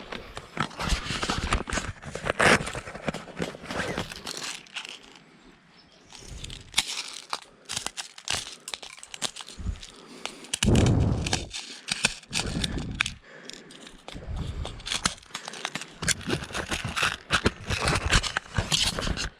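Dry leaves and brush crunching and crackling in irregular bursts as a person moves through undergrowth, with a low rumble lasting about a second roughly halfway through.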